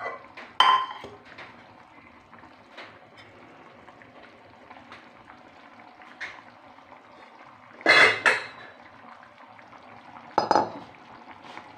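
Metal spoon knocking against a steel cooking pan, a few sharp ringing clinks: one near the start, two close together about eight seconds in, and one more near the end.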